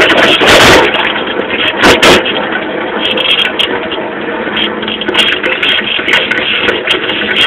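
Small moped engine running while the moped is ridden, with rattling and knocking from the bike throughout and two loud thumps, one about half a second in and another about two seconds in.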